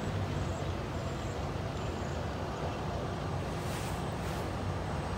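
Hi-rail truck running along the rails toward the listener, with a steady low buzz from its wheels on freshly ground rail.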